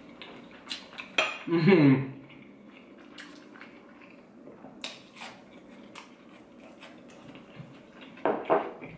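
A few sharp clicks and taps of a small sauce cup and crispy fried chicken strips being handled while a man eats. A short voiced hum of enjoyment comes about a second in, and another near the end.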